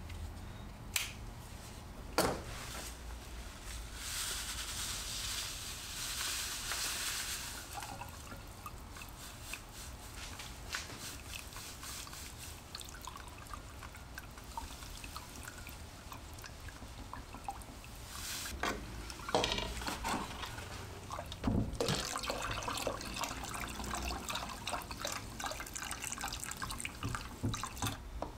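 Kodak D-76 developer powder poured from its packet into a glass bowl of water and stirred in, with liquid swirling and scattered sharp clinks of the stirrer against the glass.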